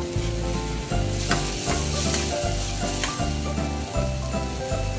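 Fermented black beans, onion and garlic sizzling as they fry in a small pan, with a metal spoon stirring and clinking against the pan a few times. Background music with a steady bass plays underneath.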